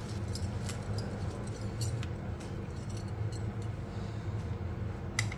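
Knife twisted round inside a small brinjal to hollow it out, giving faint scattered clicks and scrapes, with a few sharper clicks near the end, over a steady low background hum.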